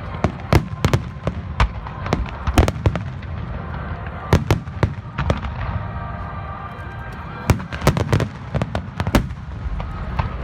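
Fireworks shells bursting in a display: sharp bangs in irregular clusters over a continuous low rumble, with a quick run of bangs about three quarters of the way through.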